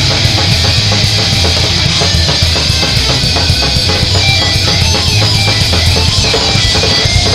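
Heavy metal band recording: distorted electric guitars over fast drum-kit playing, dense and loud without a break.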